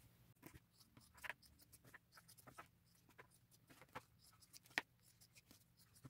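Faint, scattered snips of scissors cutting through leather, the clearest one a little before the end.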